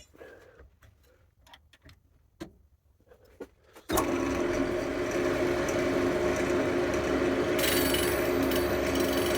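Wood lathe spinning a CBN grinding wheel: a few quiet clicks and taps, then about four seconds in the lathe starts suddenly and runs with a steady hum. A higher hiss joins near the end.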